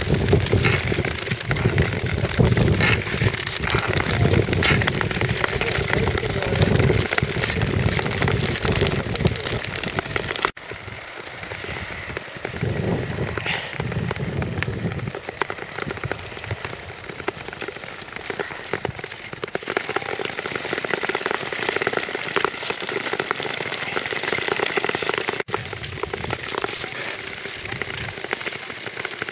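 Long-distance ice skates scraping and hissing over natural ice, with wind buffeting the microphone and occasional sharp clicks. The sound drops and changes abruptly about ten seconds in and again near the end.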